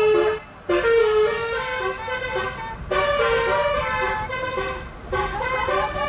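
Basuri telolet bus horn playing a melody of several notes at once, with a short break about half a second in and another dip near five seconds.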